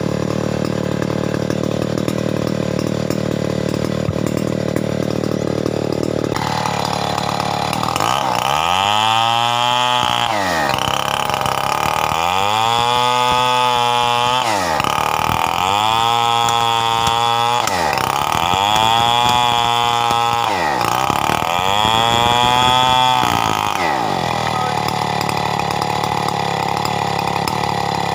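Stihl 070 two-stroke chainsaw idling, then revved up to full speed five times in a row, each rev held for about two seconds before dropping back, then settling back to idle.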